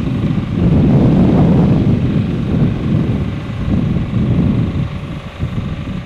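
Wind buffeting the microphone: a loud, gusty low rumble that swells about half a second in and keeps rising and falling.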